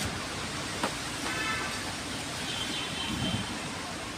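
Raw mango pieces dropping onto a cloth with a couple of soft taps, near the start and about a second in, over a steady outdoor hiss. Faint high chirps sound in the middle.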